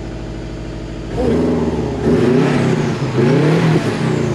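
2003 Subaru WRX's turbocharged flat-four engine idling steadily through its new catalytic-converter exhaust. About a second in it is revved, the note rising and falling about three times.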